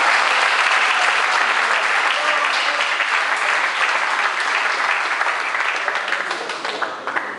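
A crowd of spectators applauding, dense at first and thinning and fading toward the end.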